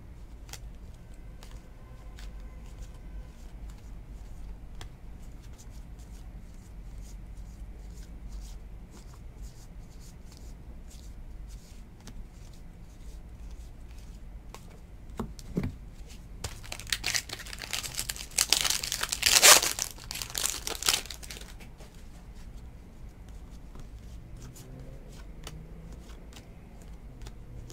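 Trading cards being slid and flicked through by hand, with faint ticks. About two-thirds of the way in comes a loud crinkling rip of a few seconds: a baseball card pack's wrapper being torn open. A steady low hum sits underneath.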